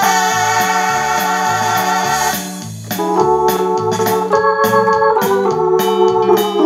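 Korg Pa600 arranger keyboard playing sustained organ-style chords over its built-in accompaniment of a bouncing bass line and drum beat, in the Chicano style the keyboard is set to. The chords drop away briefly about two and a half seconds in, then new chords come in and change twice.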